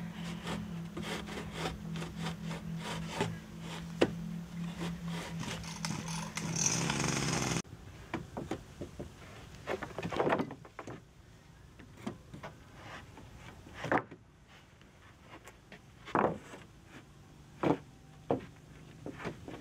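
Sawn wooden boards being handled and laid onto a log frame, rubbing and clattering. A steady low hum under them cuts off after about seven seconds. After that come a few separate wooden knocks, a couple of seconds apart.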